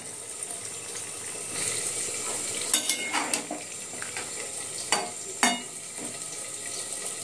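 Vegetables in a metal pan hissing steadily on the heat while a metal spatula stirs them, with a few scrapes and knocks against the pan, clearest about three and five seconds in.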